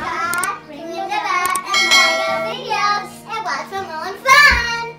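Young girls singing over background music with a steady low backing note; a single loud thump near the end.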